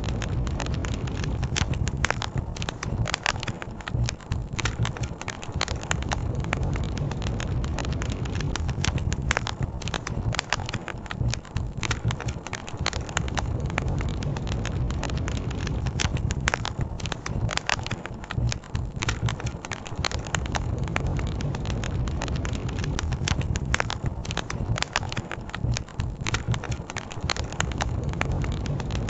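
Campfire crackling with frequent sharp pops over a steady low rush of river water.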